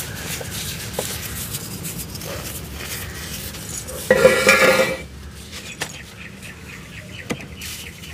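Hands crumbling soft, dry cement into dusty powder: a gritty rustle with small cracks and ticks. About four seconds in comes a louder, harsher crunch lasting about a second as a cement cone is grabbed and broken, then quieter crumbling with scattered ticks.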